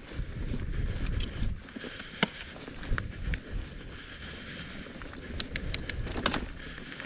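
Giant Trance mountain bike being ridden over dirt singletrack: a steady low rumble of tyres on the trail, with scattered sharp clicks and rattles from the bike over bumps, and a quick run of several clicks a little past halfway.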